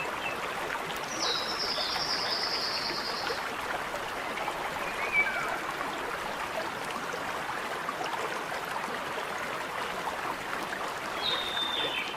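Small mountain stream flowing and trickling steadily. A bird gives a high trilled call about a second in, lasting about two seconds, a few faint chirps follow, and a shorter high call comes near the end.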